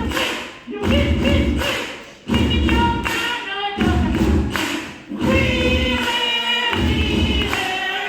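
Singing in long held phrases, about four of them with short breaths between, with a heavy low rumble under each phrase.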